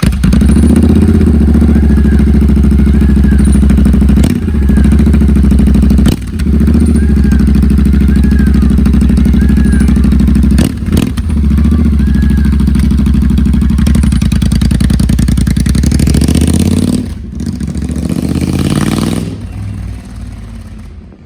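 Royal Enfield Interceptor 650's parallel-twin engine running loud through Dustland Moto Road Runner slip-on exhausts. It starts suddenly, dips briefly three times, and near the end drops away, rises for a moment, then settles quieter.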